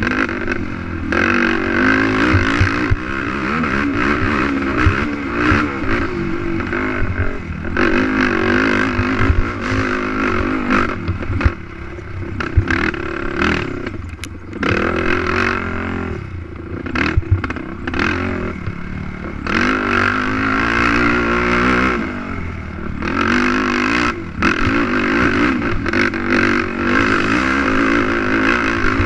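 Racing quad's engine revving up and down hard as it is ridden, the pitch rising and falling with the throttle, easing off for a couple of seconds about halfway through. Occasional knocks from the ride over rough track.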